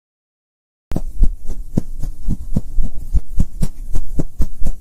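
Logo intro sound effect: a rapid, even run of low thumps, about four a second, over a steady low hum, starting about a second in.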